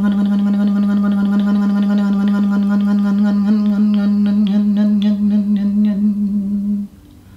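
A sound-bath drone: one low tone held steady on a single pitch, with a buzzing ring of overtones and a fast pulsing flutter running through it. The pitch wavers slightly in its second half, and the tone cuts off abruptly about seven seconds in.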